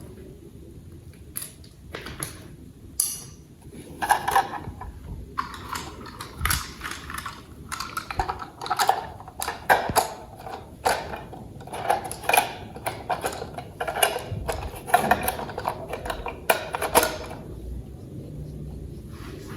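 Plastic toy parts being handled and fitted together: irregular sharp clicks and clatters with some rustling in between.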